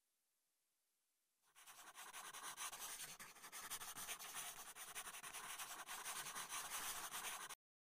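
A faint, even scratching rustle starts about a second and a half in and cuts off abruptly near the end.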